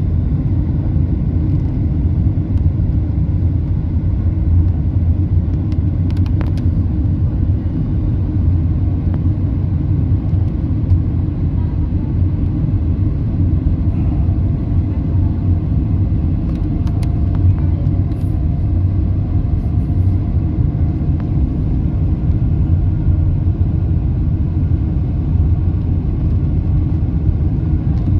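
Steady low rumble inside the cabin of a Boeing 747-8 airliner on approach, from engine and airflow noise heard at a window seat.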